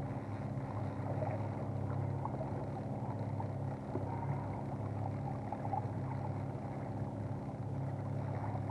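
Boat motor running steadily at trolling speed, a low even hum.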